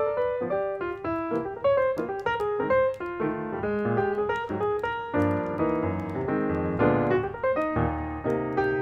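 Background piano music, a steady flow of quick notes and chords.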